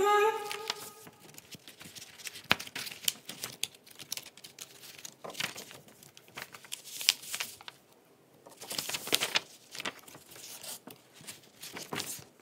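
Card stock and folded paper being handled: irregular rustling and crinkling with light taps and scrapes, in scattered clusters.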